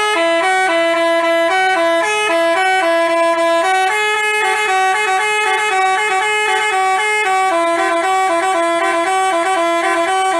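Bus telolet horn, a Basuri multi-tone musical horn, playing a quick tune of short alternating notes.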